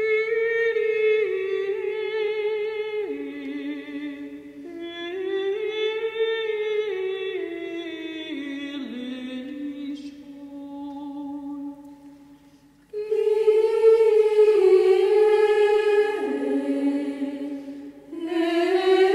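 Unaccompanied sung melody of long held notes moving step by step, in a chant-like style. It fades to a short pause about twelve seconds in and comes back louder, with another brief break near the end.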